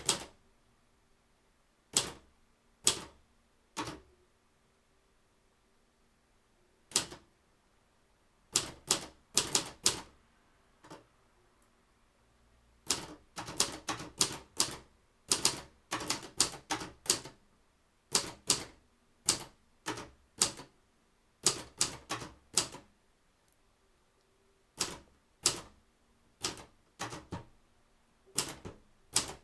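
Royal 260 manual typewriter being typed on: sharp key strikes in irregular runs, with pauses of a second or two between them.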